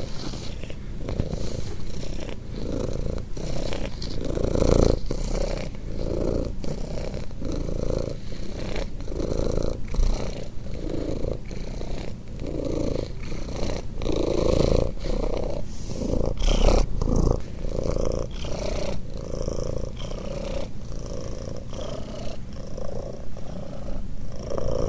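A sleeping cat snoring with a rumbling, purr-like sound that swells and fades with each breath, about once a second.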